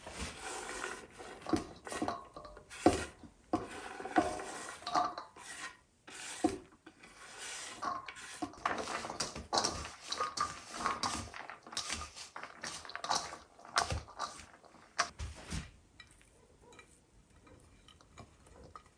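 Irregular clatter and scraping of kitchen utensils and cookware, with quick clicks and knocks, dying down about sixteen seconds in.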